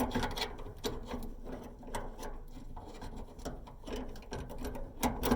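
Irregular small clicks and rattles of metal parts being handled inside a Samsung dryer's cabinet: the idler pulley's tension spring being worked back onto its hook.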